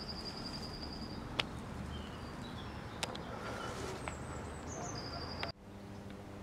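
A small songbird singing: a short phrase of high notes stepping down into a fast trill, heard at the start and again about four seconds in, with a couple of sharp clicks between. Near the end the sound cuts off abruptly to a quieter background with a steady low hum.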